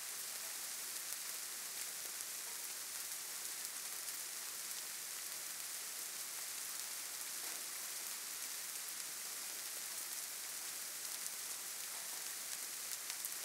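Steady, faint hiss, strongest in the high range, unchanging throughout, with no other sound.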